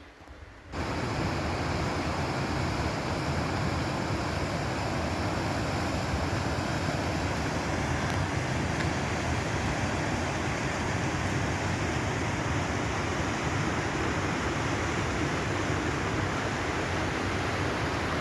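Steady rushing of water, such as a river or waterfall close by, a full even noise that cuts in abruptly about a second in and holds level.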